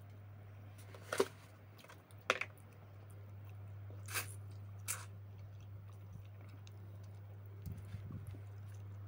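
A person chewing and biting something sour, with four sharp mouth clicks about one, two, four and five seconds in, over a steady low hum.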